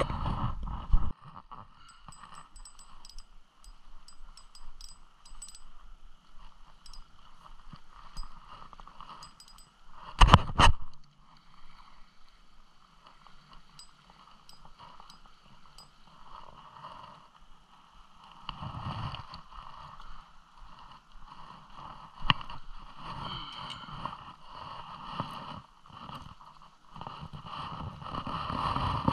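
Steady rush of water at a river dam, with light clicks and handling knocks and one loud knock about ten seconds in.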